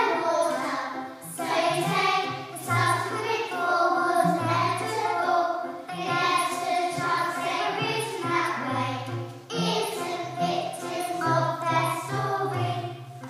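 A group of children singing a show song together in unison, with low sustained accompaniment notes underneath.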